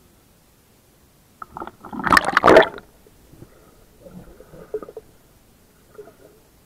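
River water splashing and churning as the swimmer dives under, loudest for about a second, then softer muffled bubbling and gurgling heard underwater, in two short spells.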